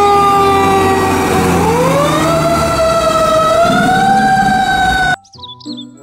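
Fire engine siren wailing over a low rumble: the pitch sinks slowly, swings back up about two seconds in and holds high, then cuts off abruptly about five seconds in.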